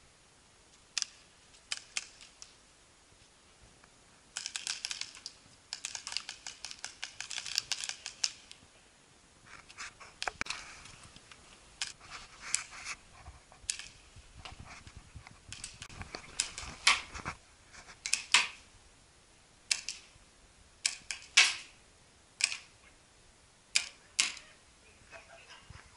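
Paintball markers firing: two dense rapid strings of shots about four to eight seconds in, then single shots and short pairs.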